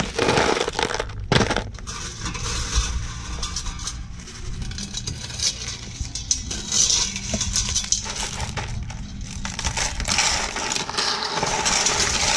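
Blood cockle shells clicking and clattering against each other and a wire-mesh strainer as they are scooped from a steel pot of hot water, with a steady hiss behind.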